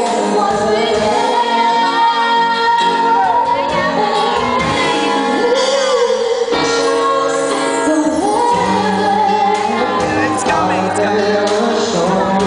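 Live band performing a song, with a woman singing lead into a microphone over the band's accompaniment.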